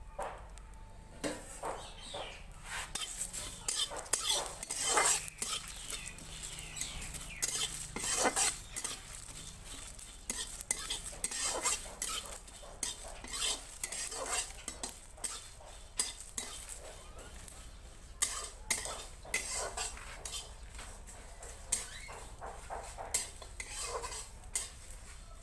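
A metal spatula scrapes and clinks against a steel kadai while whole spices (coriander seeds, cumin, bay leaves and dried red chillies) are stirred and roasted, in an irregular run of scrapes and knocks.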